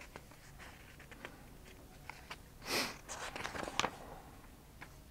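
Sheets of printer paper handled and turned on a tabletop: faint rustles and small ticks, with one louder page-turn swish about three seconds in.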